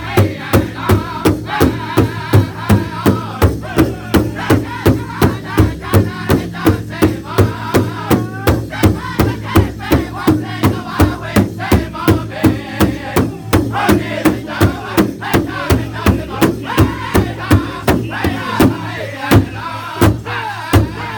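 Powwow drum group singing a Grand Entry song together over a large shared hand drum, the drum struck in unison at a steady beat of a little over two strokes a second.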